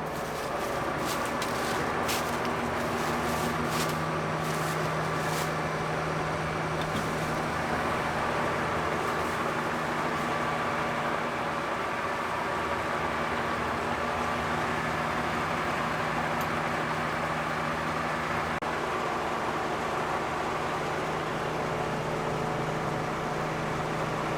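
Combine harvester running steadily: a constant machine drone with a held low hum. A few light clicks come in the first several seconds.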